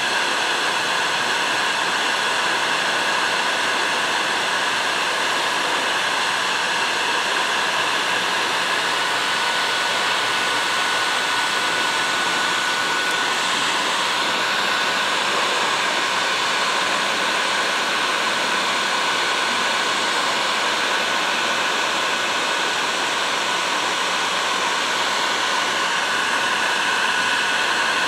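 Electric heat gun blowing hot air steadily to shrink thick heat-shrink tubing onto plier handles: an even rush of air with a thin steady high tone in it.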